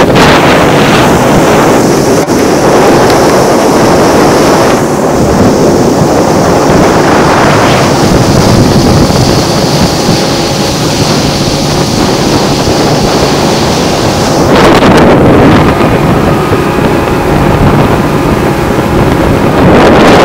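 Small motorboat running steadily at speed, its engine a low hum under heavy wind buffeting on the microphone and water rushing past the hull. The wind noise swells louder about fifteen seconds in and again near the end.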